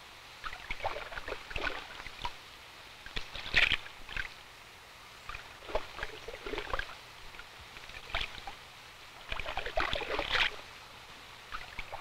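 Shallow water splashing and sloshing in short, irregular bursts.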